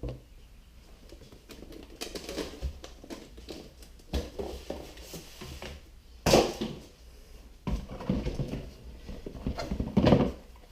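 Bagged reloading-press parts being handled and unpacked: plastic bags rustling and small parts clattering, with louder bursts of handling about six and ten seconds in.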